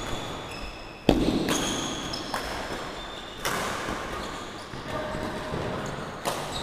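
Badminton rally: sharp racket strikes on the shuttlecock, the loudest about a second in and others around three and a half and six seconds, with short high squeaks of shoes on the wooden court.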